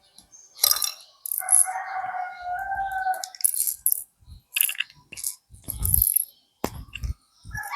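Small plastic Lego pieces clicking and clattering as they are handled. Twice a short warbling tone sounds among the clicks.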